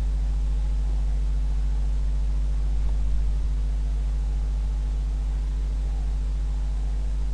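Steady low hum with a faint hiss above it, unchanging throughout, with no speech: the background noise of the recording.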